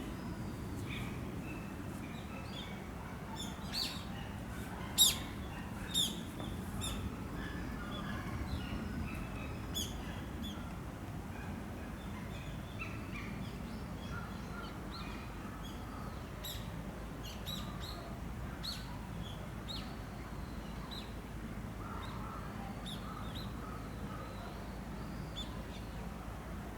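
Small birds chirping again and again over a steady low outdoor background. Two short, sharp, loud sounds come about five and six seconds in.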